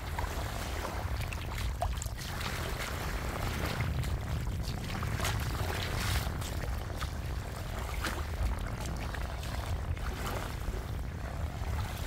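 Sea water washing and sloshing at the shoreline, with irregular splashes over a steady low rumble.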